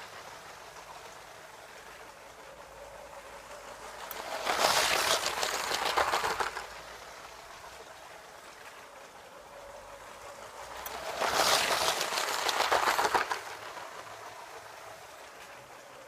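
Lego train running on a loop of plastic track, its wheels and motor clattering and whirring loudly as it passes close by twice, about seven seconds apart, and fading to a quieter hum in between.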